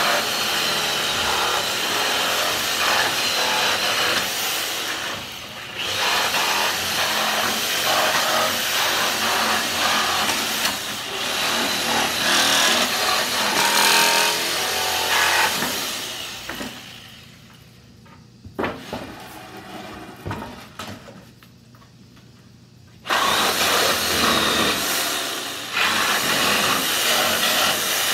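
Hyper Tough reciprocating saw with a long Lenox blade running and sawing through the nails that hold pallet boards to a 2x4. It runs for about sixteen seconds with a brief let-up near six seconds, stops with a few knocks and clatters of the wood, then starts cutting again after about seven seconds.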